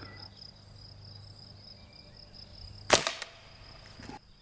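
A single shot from a Benjamin Sheridan .20 calibre multi-pump air rifle charged with eight pumps: one sharp crack about three seconds in. A faint steady insect buzz runs underneath.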